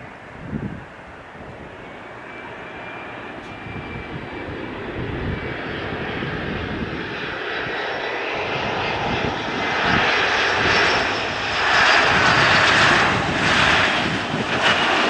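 Airliner engines growing steadily louder as the aircraft comes near, with a thin high whine over the roar, loudest in the last few seconds.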